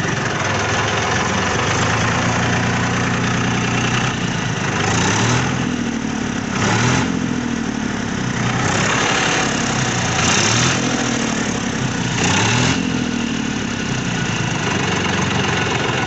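Massey Ferguson 245 DI Planetary Plus tractor's 46 HP three-cylinder direct-injection diesel engine idling in neutral just after starting. The engine note wavers slightly, with a few brief louder swells in the second half.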